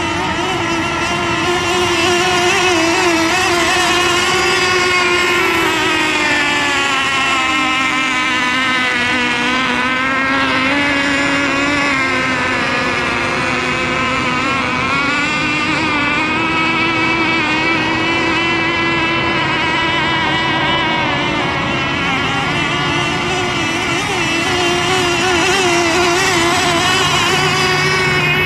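Radio-controlled race boat engines running at speed with a high, buzzing tone. The pitch wavers constantly, sags for a few seconds about a third of the way in, then climbs back up.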